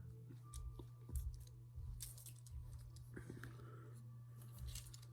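Faint clicks and light knocks of plastic Lego pieces as they are handled and snapped together, over a low steady hum.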